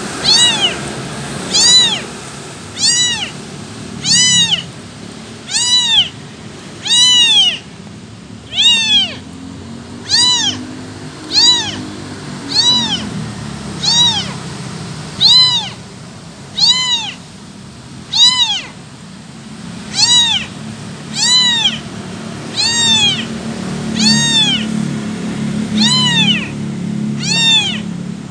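A kitten meowing over and over, calling for its mother. The calls are high-pitched and come about every second and a half, each rising then falling in pitch.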